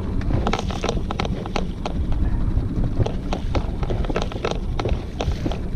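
Wind buffeting the microphone in a small open boat makes a steady low rumble. Over it come irregular sharp knocks and clicks, a few a second, from the boat and fishing gear being handled.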